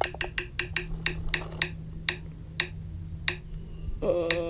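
Phone roulette-wheel app ticking as its spun wheel slows down, the clicks coming further and further apart until they almost stop. Near the end a held, wavering tone comes in.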